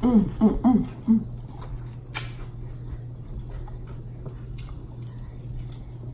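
A person eating salad hums a few pleased 'mm' sounds through a full mouth over the first second, then chews, with a few short crunches and clicks. A steady low hum runs underneath.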